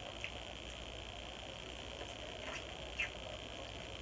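Quiet eating sounds: a few short, soft mouth clicks and smacks while chewing, over a steady background hiss.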